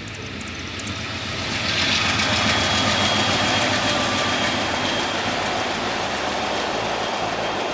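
Amtrak Texas Eagle passenger train passing below, diesel locomotives and cars rolling on the rails, growing louder over the first two seconds and then holding steady. A high steady whine sounds for a few seconds, starting about two seconds in.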